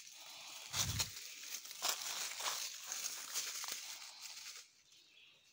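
Footsteps crunching and rustling through dry leaf litter and undergrowth on the woodland floor, with a low thump about a second in. The steps die away near the end.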